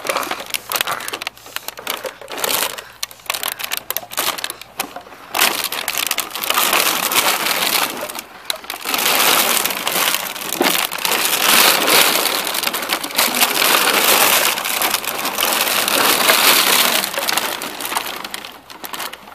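Empty plastic water bottles crackling and clattering as two Belgian Malinois puppies scramble over them, tugging at a rag. An irregular run of crinkles and knocks, growing denser and louder about a third of the way in and easing off near the end.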